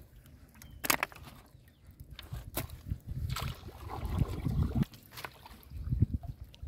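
Small wooden boat being moved through flooded, weedy water: a few sharp knocks against the hull with low sloshing and rumbling of water around it.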